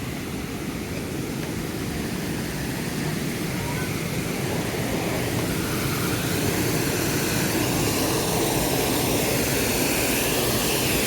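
A steady rushing noise that slowly grows louder, with a faint drifting hum in it.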